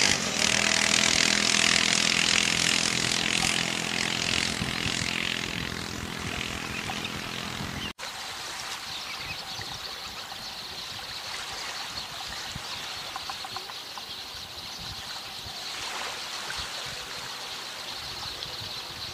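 An engine running steadily under a hiss for about the first eight seconds, then after a sudden break a softer, even, steady rushing noise.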